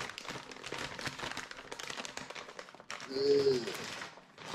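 Brown paper mailer bag rustling and crinkling as it is handled and pulled at to get it open. About three seconds in, a short hummed vocal sound from the person opening it.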